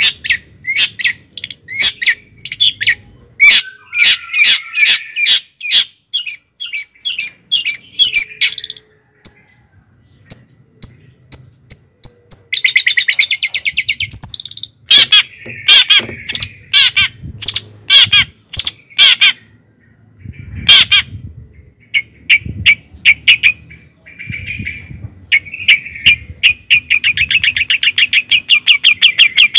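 A bird chirping and calling over and over in short, sharp notes, some in quick runs, ending in a fast trill of rapidly repeated notes.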